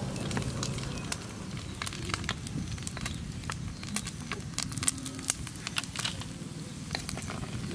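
Scattered light clicks and crackles over a low steady hum. About five seconds in, crisp fried frogs are tipped from a metal scoop onto a woven bamboo tray, giving a brief cluster of louder clicks and rattles.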